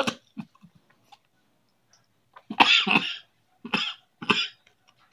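A man coughing: one longer cough about two and a half seconds in, then two shorter coughs, with faint chewing clicks before them.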